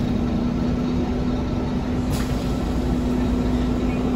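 Passenger-cabin noise of a Scania K320UA articulated city bus running: a steady engine and road rumble with a constant hum, and one brief click about two seconds in.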